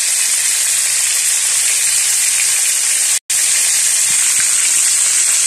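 Tilapia pieces frying in hot oil in a steel wok: a steady, hissy sizzle. The sound cuts out completely for a split second about three seconds in, then resumes unchanged.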